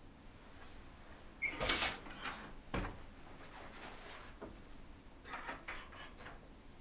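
A wooden room door being opened: a sharp latch click with a brief metallic ring about a second and a half in, a dull thump about a second later, then a few light knocks and clicks.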